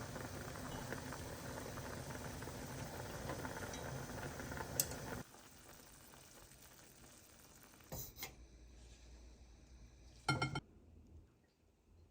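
A pot of seafood ramen boiling steadily, cutting off suddenly about five seconds in. Then a few faint clicks and a short clatter of kitchenware near the end.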